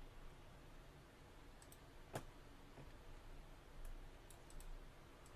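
Near silence with a few faint, sharp computer clicks from mouse or keyboard use, the clearest about two seconds in.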